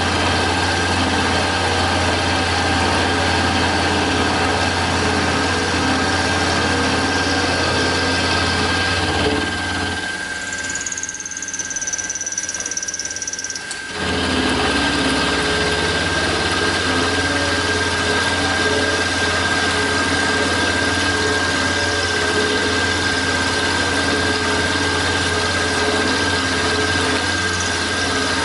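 Mini milling machine (PM-25MV clone) taking a cut in a metal block with an end mill under liquid coolant: steady motor hum and cutting noise with a constant high whine. About ten seconds in the sound drops away for some four seconds, then the cut resumes.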